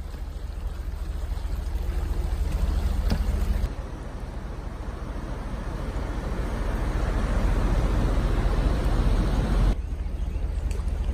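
Floodwater of a swollen creek rushing past: a steady noisy rush with a heavy low rumble. It drops sharply about a third of the way in, swells again, then drops sharply once more near the end.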